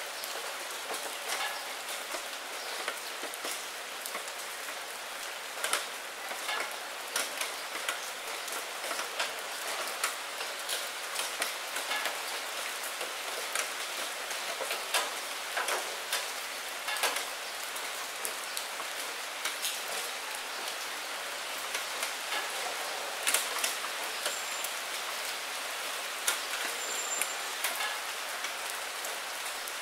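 Steady rain against a window pane: a continuous hiss with frequent separate drops tapping on the glass.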